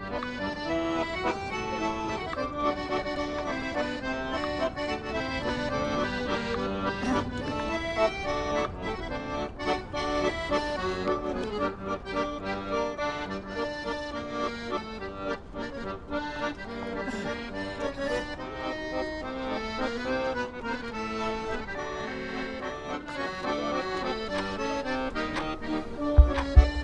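Instrumental music: a melody of held notes over sustained chords, with two loud low thumps just before the end.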